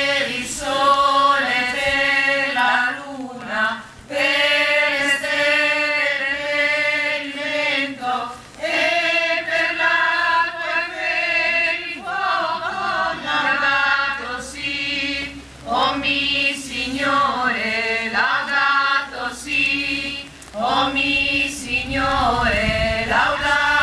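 A small choir of men and women singing a hymn unaccompanied, line by line with short pauses between phrases.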